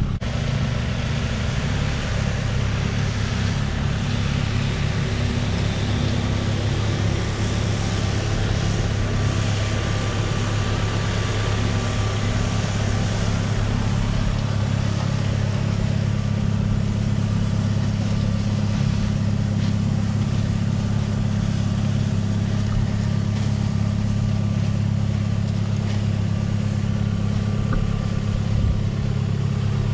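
Large farm tractor's diesel engine running steadily under load while pulling a plastic mulch layer through the soil.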